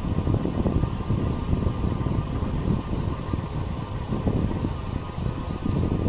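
Wind buffeting the microphone of a camera on a moving bicycle: a steady, gusting low rumble.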